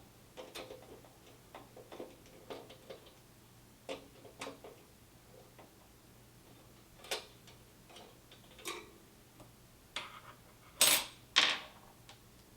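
Irregular light clicks and taps of small hard objects, with two louder clacks close together near the end.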